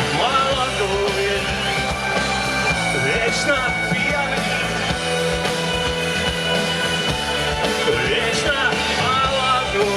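Rock music playing: a full band passage with sustained layered notes and some sliding pitches, loud and steady throughout.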